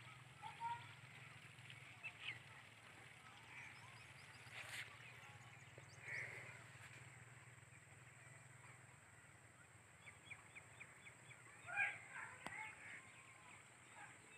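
Faint bird calls across an open field: scattered short calls, a few a little louder, over a faint low steady hum that fades out about nine seconds in.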